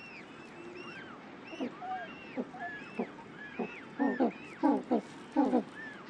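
African penguins braying in their greeting display: harsh pulsed calls, each a quick pair of strokes, that grow louder and come about every 0.7 s in the second half. Higher, rising-and-falling calls sound over them in the first half.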